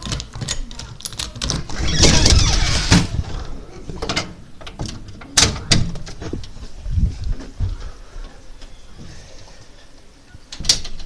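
A door being opened and shut, with scattered knocks and clicks and a louder rustling stretch about two seconds in.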